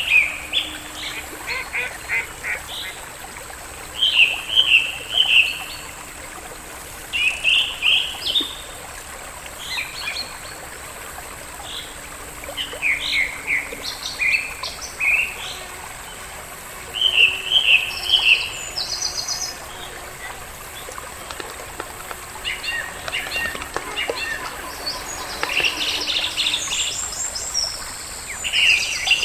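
Birds calling in short, rapid chirping phrases, one every few seconds, over a faint steady background.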